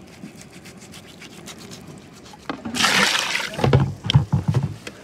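Water gushing into a steel bowl of cut pork-head pieces, starting a little past halfway, followed by heavy splashing and sloshing in the bowl.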